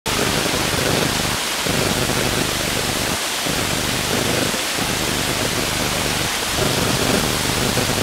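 Waterfall tumbling down a rock face, a steady dense rush of falling water, with a low rumble underneath that drops out briefly a few times.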